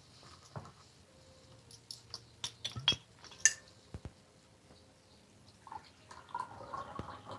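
A person drinking water: scattered light clicks and knocks of a glass being handled, the sharpest about three seconds in, then soft sipping and swallowing sounds near the end.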